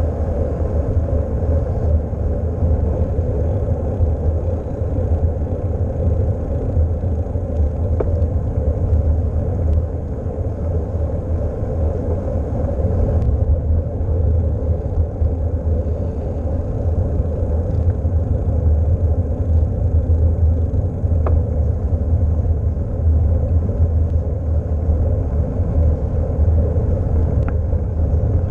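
Steady wind rumble on a bicycle-mounted action camera's microphone, mixed with tyre and road noise as the bike rolls along, with a few faint ticks.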